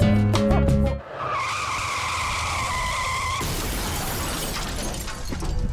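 Background music, then about a second in a DeWalt 60V FlexVolt cordless angle grinder runs with a high whine over a loud rushing hiss. A couple of seconds later the whine drops out and a harsh hiss carries on until music comes back near the end.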